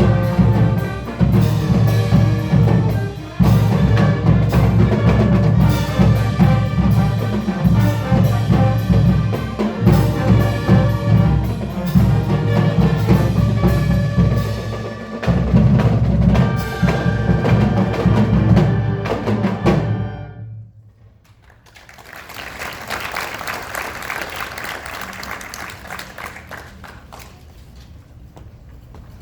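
Marching band playing with heavy drums, the piece cutting off sharply about two-thirds of the way through; after a short pause, crowd applause swells and fades.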